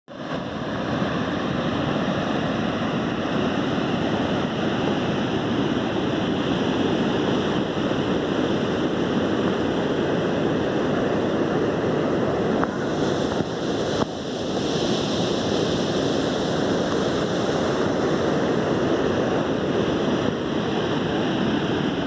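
Waterfall rushing steadily, with two short breaks a little past the middle.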